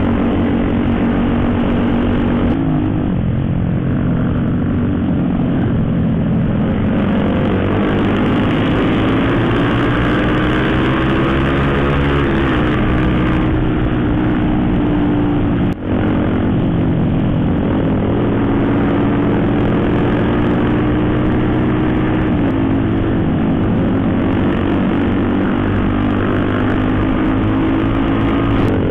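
Motorcycle engine running under way, its pitch dropping and climbing again a few times with throttle and gear changes, over a steady rush of wind and road noise.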